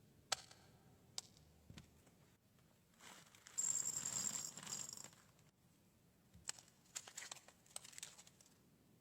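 Faint handling noises: a few sharp clicks, a louder crackling, rustling stretch about three to five seconds in, then another run of small clicks near the end.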